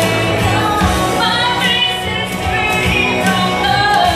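A woman singing into a microphone over instrumental backing music, her voice sliding up and down through long, wavering held notes from about a second in.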